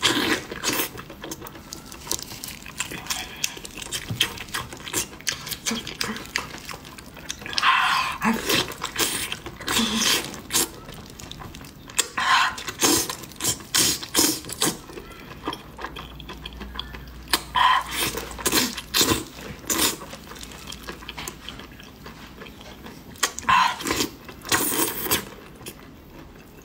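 Close-miked wet chewing and lip-smacking of soy-braised pig's head skin and meat, with irregular sticky clicks and louder smacking bouts.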